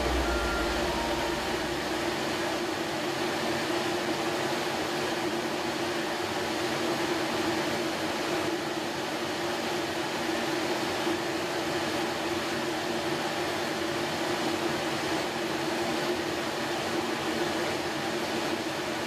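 Epilog laser engraver running while it engraves a hard maple board: a steady hum and hiss with a constant droning tone.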